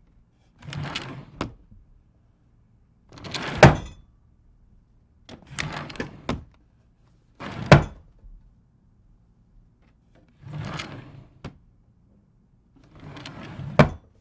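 A drawer slid open and shut three times. Each slide is a short rubbing run, and every second one ends in a sharp knock as the drawer hits home.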